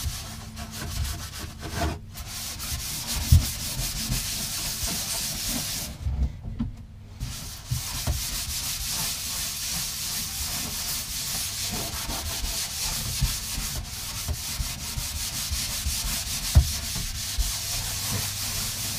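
Hand sanding the inside wall of a boat livewell with sandpaper: steady scratchy rubbing that pauses briefly about six seconds in, with a couple of dull thumps against the tank. The surface is being roughened so that mounting tape will bond.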